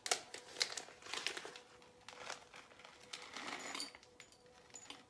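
Small plastic bag crinkling and rustling as it is handled, in irregular bursts, with a few light clicks near the end.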